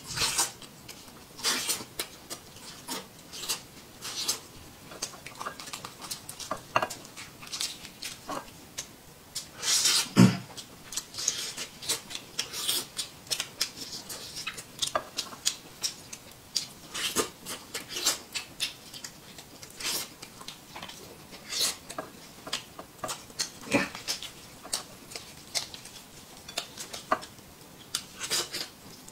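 Close-up eating sounds of a man gnawing roast chicken off the bone: frequent irregular lip smacks and chewing clicks, with a few louder smacks.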